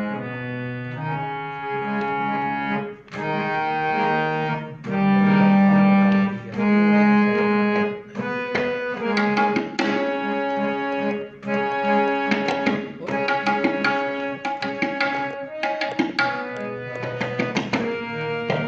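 Tabla solo in teentaal over a harmonium playing the repeating lehra melody. The tabla strokes are sparse at first, under long held harmonium notes, then become a fast, dense run of strokes from about eight seconds in.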